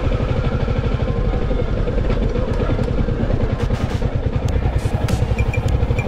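Motorcycle engine running at low speed under way, heard from on the bike, with scattered clicks and rattles as it rides over a rough dirt road.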